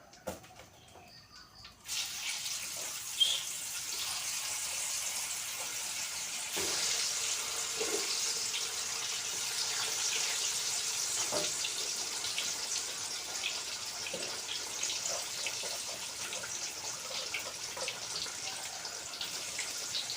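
Food frying in hot oil: a steady sizzle with small crackles starts suddenly about two seconds in, as the food goes into the pan.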